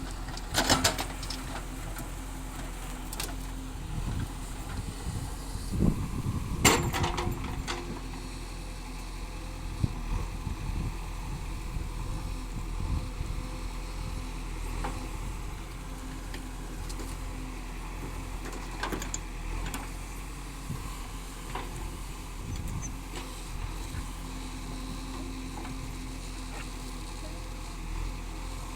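Diesel engine of heavy farm or construction machinery running steadily, with a few sharp metallic knocks, the loudest about six to seven seconds in.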